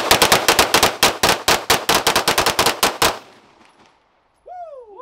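Rapid gunfire: a fast string of shots, about six or seven a second, which stops about three seconds in. Near the end comes a short wailing tone that rises and then falls.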